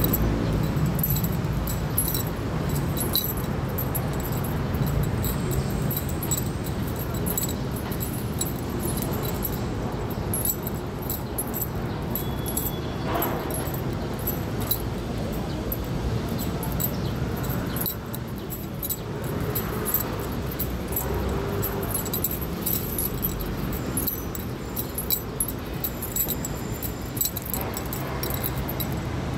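City street ambience heard while walking: a steady low rumble of traffic with many short, high-pitched ticks over it.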